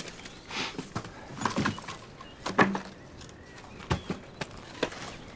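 Broken wooden planks and rubble being pulled aside by hand: irregular knocks, scrapes and clatters of wood and debris.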